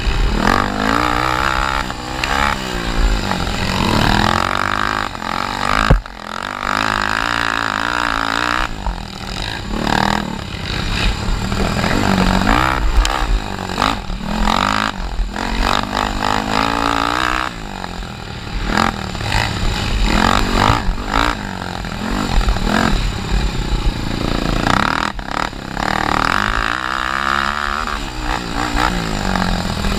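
Honda 300EX quad's single-cylinder four-stroke engine under hard riding, its revs rising and falling again and again. A sharp knock about six seconds in.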